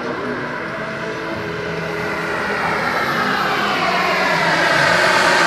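Radio-controlled model airplane's engine running in flight, growing louder and rising in pitch as the plane comes closer.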